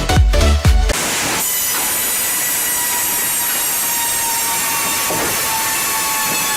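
Electronic dance music with a beat cuts off about a second in. A steady, loud, hissing machine noise with a faint whine follows without a break.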